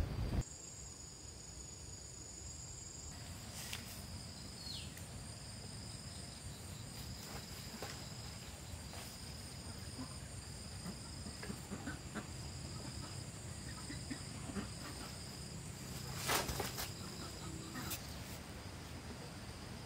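Insects chirping in a steady, high, pulsing trill over faint rural ambience. A few soft clicks are scattered through, and a short clatter comes about three-quarters of the way in.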